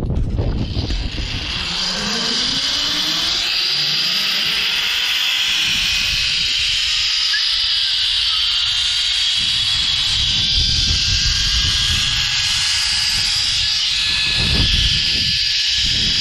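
Zip line trolley running down the steel cable: a steady hissing whir, its whine rising in pitch over the first few seconds as the rider gathers speed. Wind buffets the microphone at the start and again near the end.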